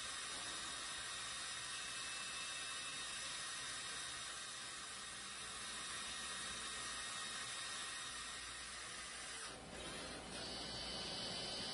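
CNC lathe with a live end-face milling tool cutting brass: a steady hiss with a faint high whine. About nine and a half seconds in, the sound shifts briefly and a different high whine follows.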